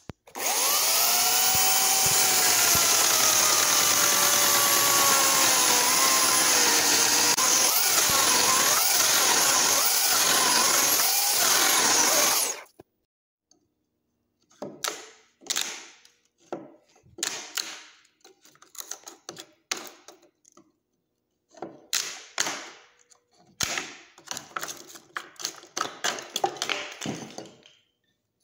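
A handheld power saw runs for about twelve seconds and cuts off suddenly, its motor pitch dipping and rising as it makes a row of shallow kerf cuts across a log to start a notch. Then a chisel pries and splits out the wood between the kerfs in a long series of short, irregular cracks and knocks.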